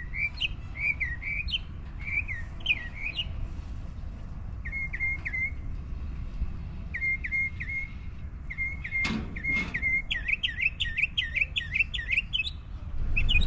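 A bird calling in strings of short whistled chirps, each note dipping and rising, the notes coming faster near the end, over a steady low rumble.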